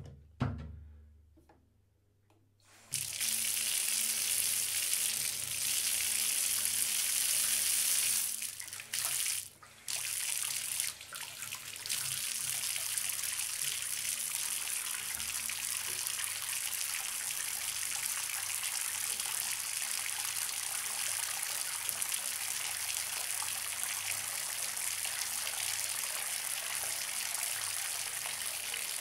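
Bathtub filling from a running tap: the water stream starts abruptly about three seconds in, after a low thump. It falters and drops out briefly a few times around ten seconds, then runs steadily.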